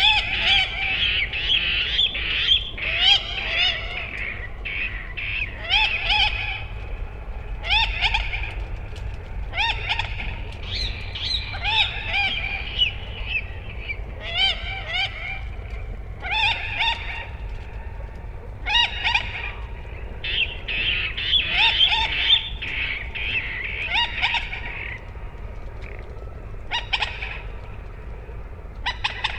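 Common moorhen calling: repeated bursts of short, harsh, pitched notes every second or two, with a pause near the end. A steady low rumble runs underneath.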